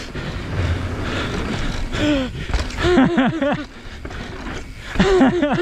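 Evil Wreckoning LB mountain bike rolling fast over a wooden plank boardwalk, with steady tyre, trail and wind noise. The rider's voice comes in short bursts, about two seconds in, around three seconds in, and again near the end.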